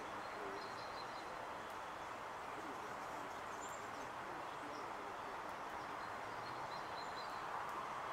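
Faint, steady outdoor background noise with a few faint, short, high bird chirps scattered through it.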